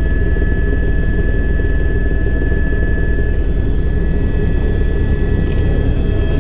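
Helicopter heard from inside its cabin: a steady, rapid beat from the main rotor with a constant high turbine whine above it.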